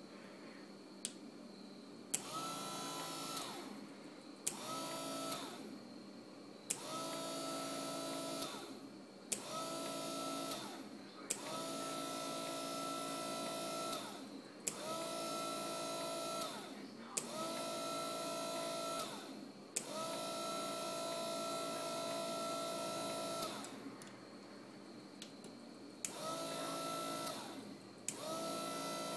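Relay-switched DC gear motor with a crank arm running in about ten separate bursts, some about a second long and some three to four seconds. Each run starts and stops with a sharp click, its whine rising as the motor spins up and dropping as it slows.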